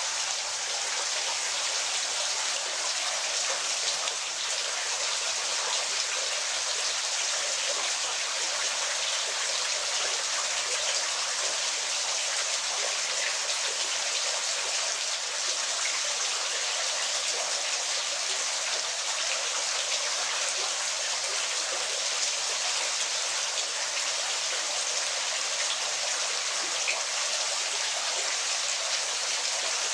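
Falling water: a steady, even splashing hiss with almost no low rumble.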